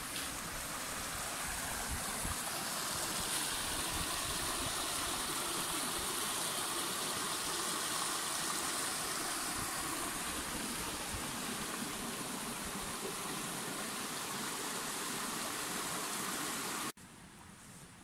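Small forest stream running over rocks: a steady rush of water. It stops abruptly near the end, leaving only a faint hush.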